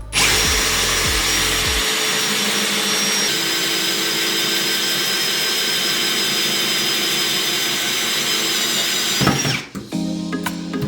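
Power drill running a hole saw cutting into the wall, steadily for about nine seconds and then stopping. The hole saw is out of alignment, so it wobbles as it cuts.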